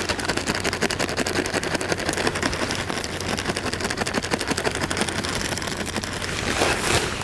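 Cast-iron pan of paella stock boiling over a wood campfire, with dense, rapid bubbling and crackling as dry rice is poured in from a bag. The sound swells into a louder rush near the end.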